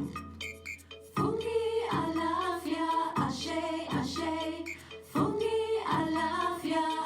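Music: a short run of light picked notes, then a woman singing a melody over the accompaniment from about a second in.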